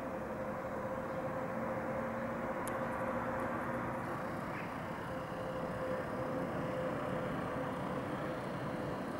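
Steady background hum of distant city traffic, with a faint continuous tone running through it.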